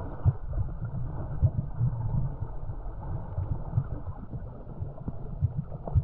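Muffled water sloshing with irregular low thumps and knocks.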